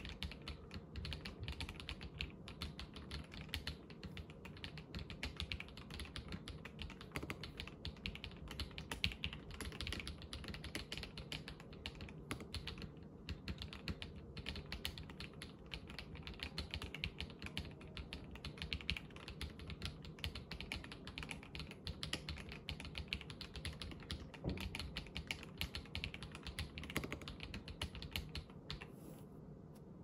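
Mechanical keyboard with KTT Red Wine linear switches lubed with Krytox 205G0, a gasket-mounted polycarbonate plate and a black acrylic case, being typed on in a fast, continuous patter of keystrokes. The typing pauses briefly near the end.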